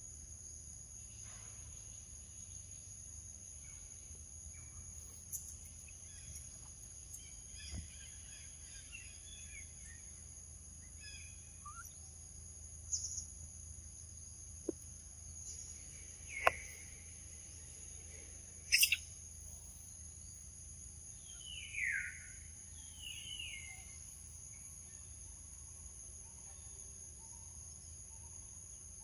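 Steady high-pitched drone of an insect chorus, with scattered bird chirps, a couple of falling calls about two-thirds of the way in, and a few sharp clicks.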